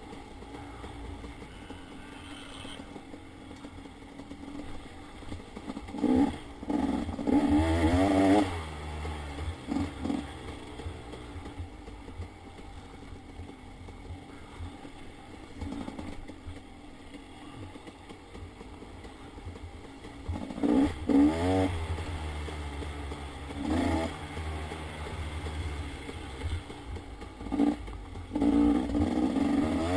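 Dirt bike engine running under way on a rough trail, rising and falling in pitch with the throttle, with several loud revving bursts: one a few seconds in, two more past the middle, and again near the end.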